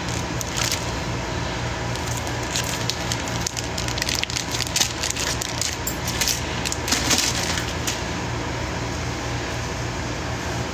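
Rustling and crackling handling noise close to a phone's microphone, as clothing and hands brush against it, in irregular clicks that are thickest in the middle. Under it runs a steady low hum.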